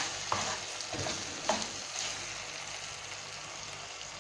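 Beef mince sizzling steadily as it is dry-fried (bhuna) uncovered on medium flame in a nonstick pan, cooking off its excess water. A spatula scrapes and turns it a few times in the first two seconds.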